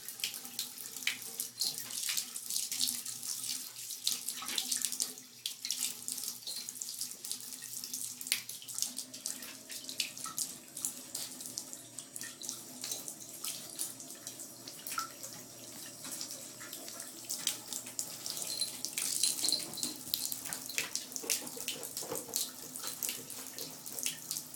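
Water running from a tap and splashing in a sink, with a steady stream of small irregular spatters.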